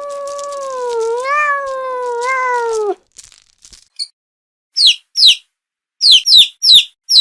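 A cat giving one long, wavering meow lasting about three seconds. About a second and a half later come five short, high chirps, each falling in pitch.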